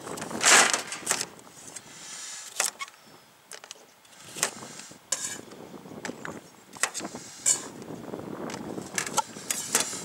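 Kitchen knife chopping carrot on a metal box lid, with carrot pieces dropped into an aluminium pot. The sound is irregular sharp knocks and clicks, the loudest about half a second in.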